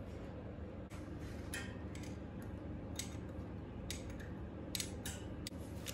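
Steady hum of water refilling the central heating system. Several sharp metallic clicks come at intervals as a gloved hand works the chrome radiator valve.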